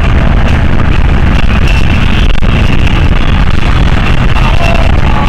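Loud, steady road and engine rumble inside a moving car's cabin, with no breaks or sudden events.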